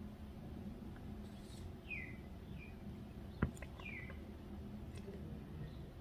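A songbird calling outdoors: a few short, downward-sliding chirps spaced a second or two apart, over a steady low background rumble. A single sharp click about three and a half seconds in is the loudest sound.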